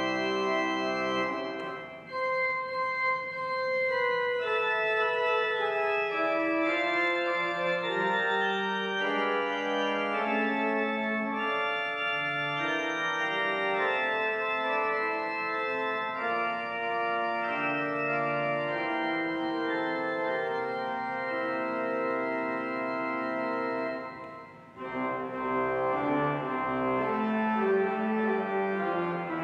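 Organ playing slow, sustained chords in a quiet hymn-like prelude, with brief breaks between phrases about two seconds in and again near the end.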